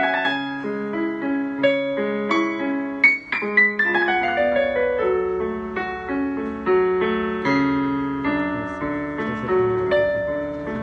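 Solo piano playing, chords and melody notes struck and ringing as they fade over one another, with one sudden loud accent about three seconds in.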